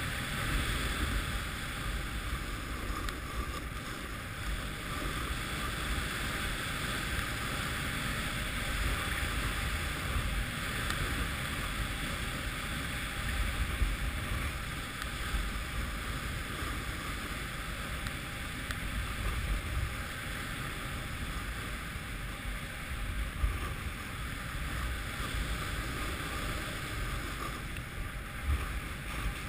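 Snowboard sliding and carving on groomed snow, a steady hiss and scrape, with wind rumbling on the microphone of a board-rider's action camera. A couple of brief louder bumps stand out, once about halfway through and again later.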